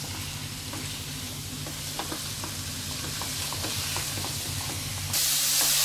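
Chicken pieces sizzling in oil in a nonstick pan on high heat while being stirred with a spatula, with scattered light scrapes and taps of the spatula on the pan. About five seconds in, the sizzle becomes suddenly louder.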